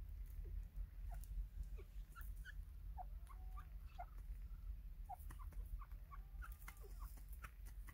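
Soft short chirps and squeaky peeps from a white francolin (teetar), scattered irregularly, some with short rising-and-falling glides, over a steady low rumble.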